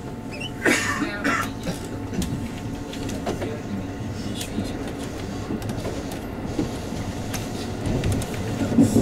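JR West 221 series electric train running, heard from inside the leading car: a steady rumble of wheels and motors with sharp clicks over the rail joints and points, the clearest cluster about a second in.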